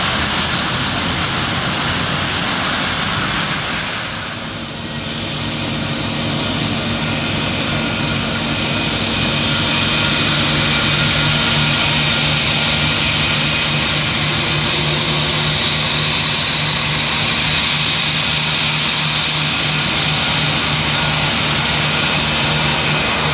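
Airbus A319's IAE V2500 turbofan engines running at taxi power, a steady jet whine over a low hum. The sound dips briefly about four seconds in, then grows louder and stays up from about ten seconds on as the jet taxis closer.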